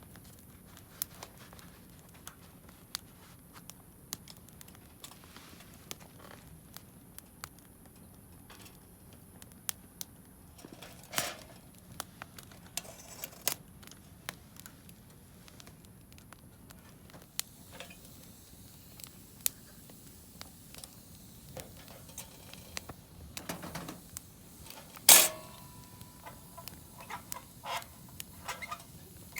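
Wood campfire crackling, with irregular sharp pops throughout. Near the end comes a single loud clink that rings briefly.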